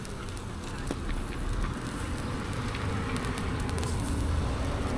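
Food sizzling in a pan at a street stall: a steady frying hiss over a low outdoor rumble.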